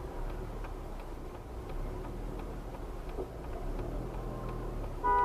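Car turn-signal indicator clicking at a steady rhythm, about two to three ticks a second, over low engine and road hum inside the car. A car horn starts sounding at the very end.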